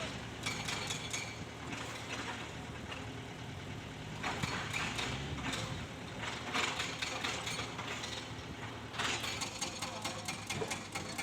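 Excavator's diesel engine idling steadily, with bursts of sharp metallic clicking and clanking from work on the steel track.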